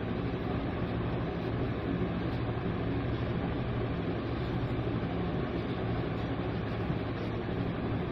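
Steady low mechanical hum over a rushing hiss, even and unbroken, like a fan or motor running.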